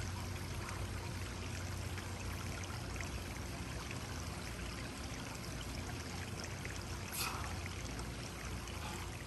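Steady running, splashing water from a backyard swimming pool's water feature, with a steady low hum underneath.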